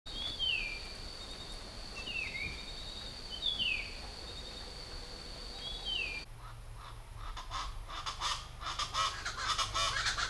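Birds calling over a steady high whine: one bird repeats a short falling whistle about every one and a half seconds. About six seconds in the sound changes abruptly to a dense, fast chattering of many birds.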